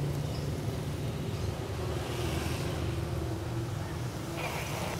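Street traffic: motorcycles and cars passing on a town road, a steady low engine hum.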